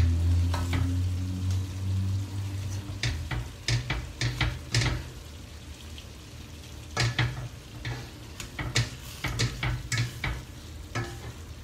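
A black plastic spatula stirring ground meat and peas in a stainless steel pot, with irregular scrapes and clacks against the pan. A low hum at the start fades away over the first two seconds.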